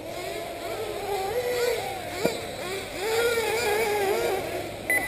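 Several 1/8-scale nitro buggy engines buzzing, their pitch rising and falling as the cars speed up and slow down around the track. A sharp knock about two seconds in and a short beep near the end.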